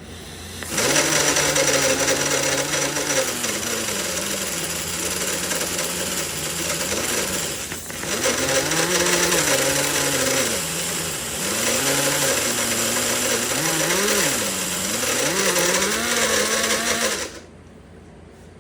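Pneumatic 90-degree angle grinder running in a vise, filing the end of a piston ring. Its pitch sags and recovers again and again as the ring is pressed to the wheel, with a brief dip about eight seconds in, and it cuts off suddenly near the end.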